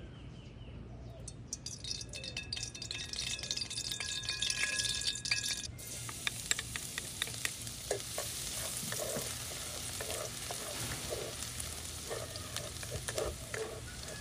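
Oil crackling and spitting in a hot wok. About six seconds in, it changes abruptly to minced garlic sizzling in the oil, with a wooden spatula stirring and scraping it against the wok.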